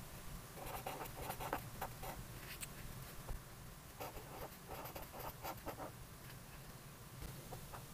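Felt-tip marker writing on grid-ruled notebook paper: soft scratchy pen strokes in quick clusters, one word at a time, with short pauses between.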